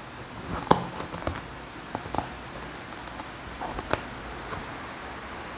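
A knife working at a taped cardboard shipping box: a handful of light taps and scrapes spread over a few seconds.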